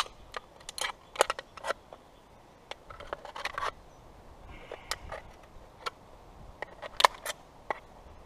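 Knife blade cutting around the top of an aluminium drink can, the back of the blade pushed along from a poked hole to tear the lid off: a run of irregular sharp clicks and short metallic scrapes.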